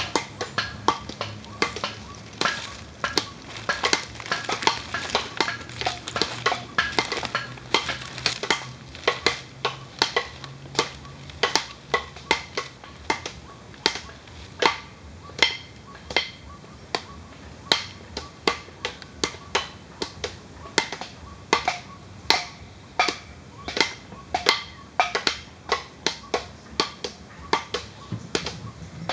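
A rapid, uneven series of sharp clicks or taps, about two to three a second, some with a short ringing tone, over a faint low hum.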